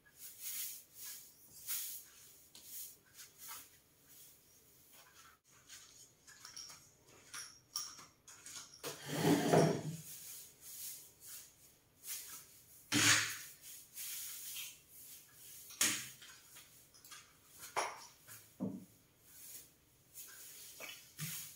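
Long-handled broom brushing and swishing against walls and ceiling in repeated short strokes, with several louder knocks, the loudest about halfway through.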